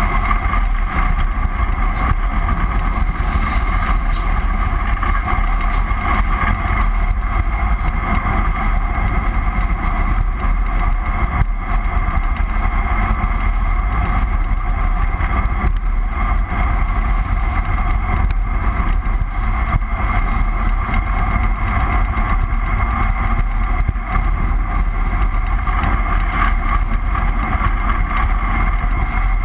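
Steady wind rushing over a bicycle-mounted action camera during a fast downhill ride, with a constant low rumble.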